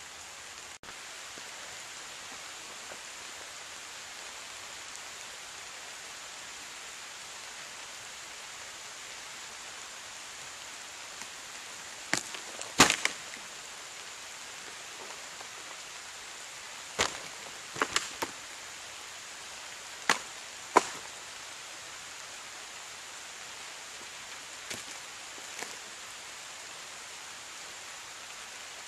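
Steady hiss of rain, broken from about twelve seconds in by a series of sharp wooden cracks and knocks, in pairs and small clusters, the loudest a little under halfway through, then two fainter ones later.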